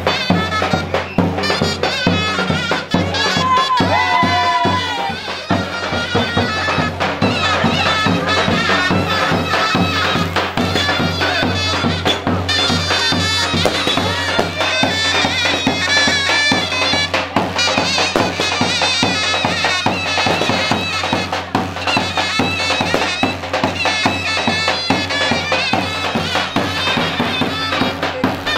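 Traditional Turkish folk dance music: a loud reed wind instrument plays an ornamented, wavering melody over a steady low drone, driven by an even drum beat.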